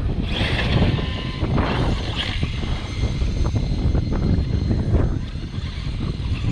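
Wind buffeting the microphone in a steady rumble, with an electric RC car motor whining in a few short bursts during the first couple of seconds.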